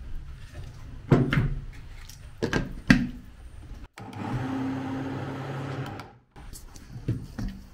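A few sharp knocks of kitchen utensils, then a small electric kitchen appliance motor runs steadily for about two seconds, starting and stopping abruptly, followed by more light knocks near the end.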